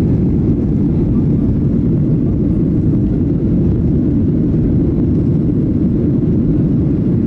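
Jet airliner cabin noise in flight shortly after takeoff: a loud, steady, even rumble of engines and airflow heard from inside the passenger cabin.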